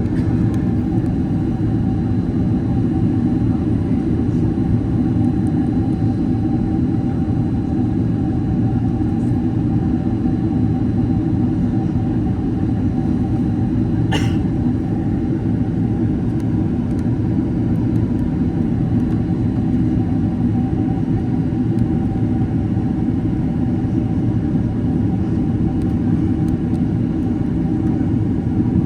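Steady cabin noise inside a Boeing 767-300ER in flight: a constant low rumble of engines and airflow with a faint steady tone over it. One short click about halfway through.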